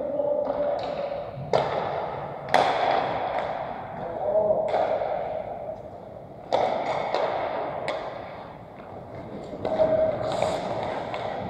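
Pickup ice hockey: skate blades scraping the ice, with about five sharp clacks of sticks, puck and boards spread through, each echoing around the arena.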